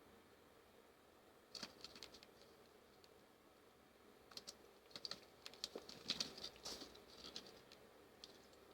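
A cat's claws scratching and tapping at a scratching post in short, faint, scratchy bursts: a brief flurry about a second and a half in, then a busier run of quick scratches and taps in the second half.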